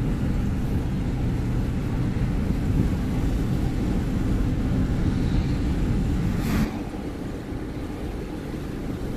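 Car driving on a two-lane road, heard from inside the cabin: a steady low rumble of engine and tyres. About two-thirds of the way in, an oncoming pickup truck passes with a brief whoosh, after which the noise is a little quieter.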